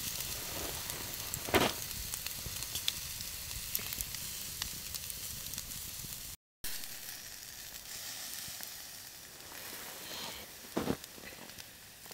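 Steak and asparagus sizzling on a wire grill rack over wood coals, a steady hiss with a couple of sharp pops. The sound cuts out for a moment about halfway through.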